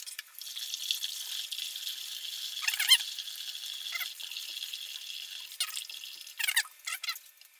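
Hot water pouring from a stainless-steel kettle through a plastic funnel into a new oak barrel: a steady trickling splash. Several short squeaks sound over it, the loudest about three seconds in.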